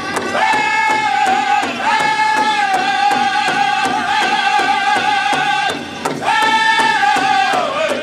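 Powwow drum group: several singers in unison with high, held vocal lines over a large drum struck together with sticks in a steady, fast beat. The voices break off briefly just before six seconds, come back in, and fall in pitch near the end.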